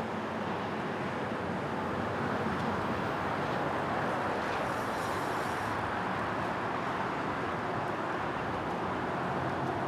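Steady rush of a large pack of road bicycles rolling past on asphalt, many tyres and freewheels together making an even whirring hiss.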